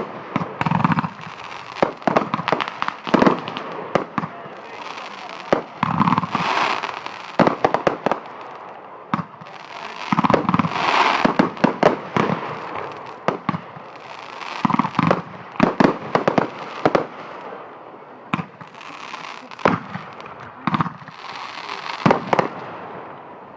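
Fireworks going off in quick succession: many sharp bangs and crackles, coming in fresh volleys every few seconds.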